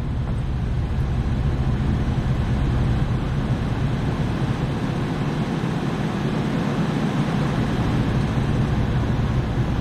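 Steady low mechanical hum with an even rushing noise. The AAON rooftop unit's supply blower is not among the sounds, since it has not started.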